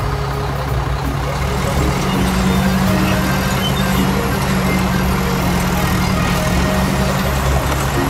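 Heavy vehicle engine running steadily with a deep rumble, as a cartoon sound effect for a mini excavator crawling up a ramp onto a flatbed truck; the engine note strengthens about two seconds in.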